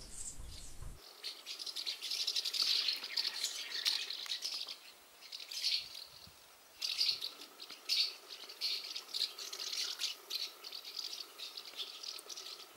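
Birds calling in a dense, high, rattling chatter. It starts about a second in, thins out briefly around the middle, then picks up again.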